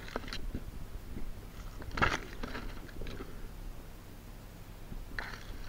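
Close rustling and crunching of grass and handling noise, in short bursts at the start, around two to three seconds in, and near the end.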